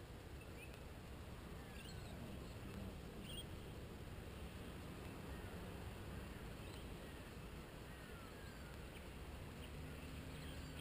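Quiet outdoor ambience: a steady low background rumble with scattered faint, short bird chirps and small falling whistles.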